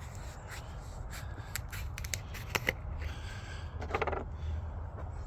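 A plastic quart bottle of motor oil being handled and opened: a string of sharp clicks, crackles and scrapes of plastic over a steady low hum.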